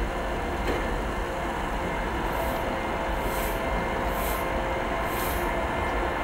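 ChS4t electric locomotive running slowly on the approach, a steady hum with several held tones over a low rumble and rushing noise. Soft hissing pulses come about once a second in the second half.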